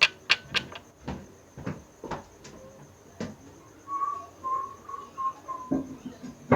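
A few sharp clicks and knocks, then a person whistling a short run of about five separate notes.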